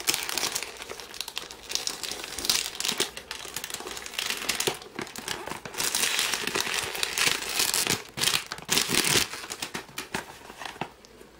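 Clear cellophane wrapping on a perfume box crinkling as it is pulled and peeled off by hand, in bursts of crackling that fade out near the end.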